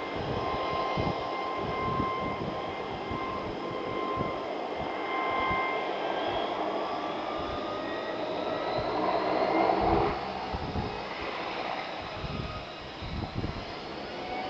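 Two Rolls-Royce Dart turboprop engines of a Hawker Siddeley Andover running as it taxis, with a steady high whine. The sound swells to its loudest about ten seconds in, then drops away.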